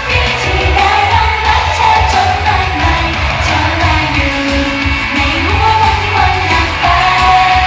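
T-pop song with singing over a heavy, pulsing bass beat, played loud over a concert sound system.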